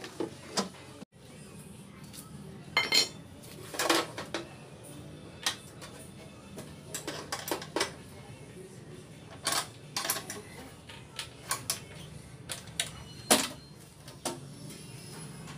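Metal mounting brackets and bolts clinking and knocking against a motorcycle's rear frame as a saddle box mount is lined up and fitted by hand: irregular sharp clicks and clanks.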